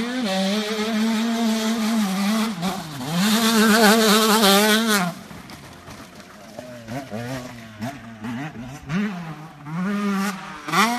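Motocross bike engine revving under throttle, loud for the first five seconds with a brief drop in pitch about three seconds in. It then goes quieter with short bursts of throttle, and swells again near the end.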